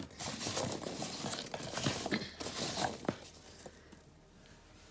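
A hand rummaging through biodegradable packing peanuts in a cardboard box: a dry rustling with many small clicks that dies away about three seconds in.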